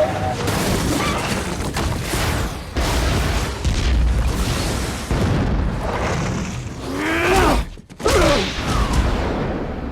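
Film action sound effects: continuous heavy rumbling and crashing booms, which cut out abruptly for a moment near eight seconds. Short wailing sounds that bend in pitch come just before and just after the cut.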